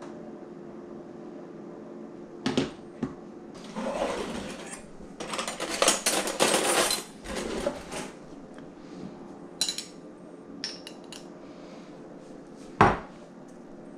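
Cutlery drawer being opened and metal utensils rattling as a hand rummages through them, followed by a few light clicks and one sharp knock near the end, over a faint steady hum.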